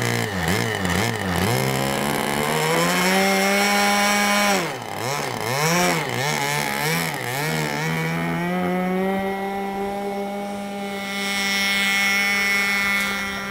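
Radio-controlled model airplane's motor buzzing in flight. Its pitch swoops up and down over and over as the plane passes and maneuvers, then holds steadier and climbs slowly in the last few seconds.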